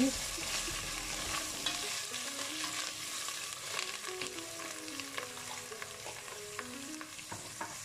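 Sliced onions and ginger-garlic paste sizzling in hot olive oil in a stainless steel pot while being stirred with a slotted spoon, which scrapes and taps against the pot now and then. The onions are being sautéed toward light brown.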